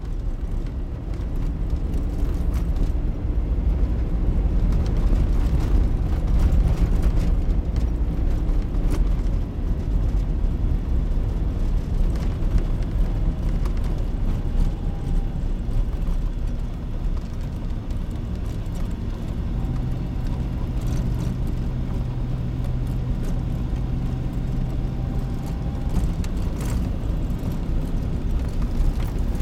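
Car driving along a snow-packed road, heard from inside: a steady low rumble of engine and tyres.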